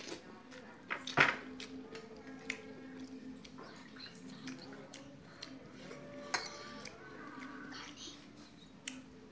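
A person eating rice with fried fish by hand from a plate: chewing and lip-smacking with scattered clicks of fingers and food against the plate, the sharpest about a second in. A faint steady hum runs underneath.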